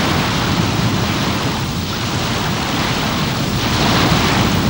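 Steady rushing of wind and sea, a noisy roar that slowly swells and eases, as of a warship's hull pushing through the waves.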